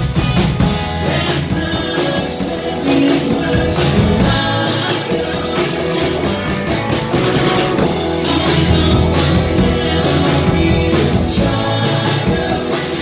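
Live rock band playing 1960s British Invasion-style rock and roll: electric guitars and drums with a steady beat, keyboard, and a lead vocal.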